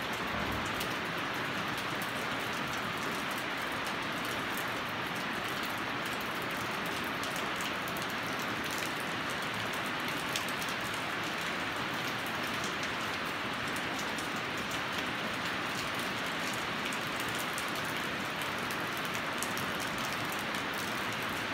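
Steady hiss of heavy rain falling on the roof, with a fine crackle of drops throughout.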